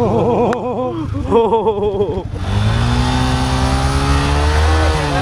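Yamaha R15's single-cylinder engine being revved. For about the first two seconds the note warbles rapidly up and down several times a second. Then it settles into a steadier, deeper note that slowly climbs and falls.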